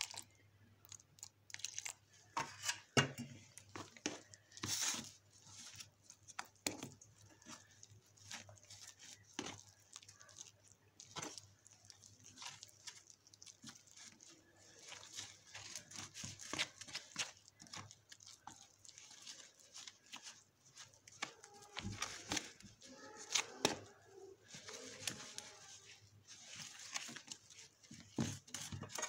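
Metal spoon stirring and scraping gram-flour batter in a plastic tub: irregular scrapes and clicks as water is worked into the dry flour, busier near the end.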